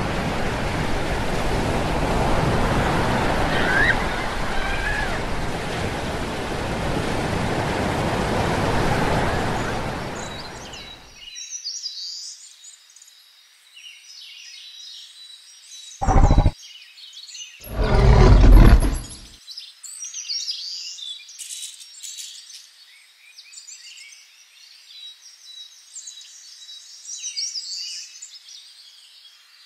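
Steady surf-like rushing noise that cuts off about eleven seconds in, leaving faint bird chirping. Two loud low rumbles come about sixteen and eighteen seconds in, the second longer.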